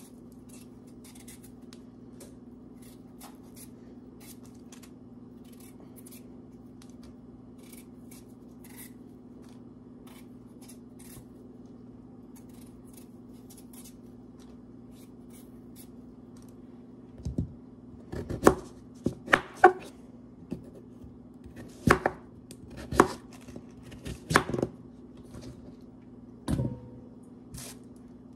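Potatoes being peeled by hand with a paring knife: faint scraping and ticking of the blade on the skins at first, then about two-thirds of the way in a run of about a dozen louder sharp knocks and clicks. A steady low hum sits underneath.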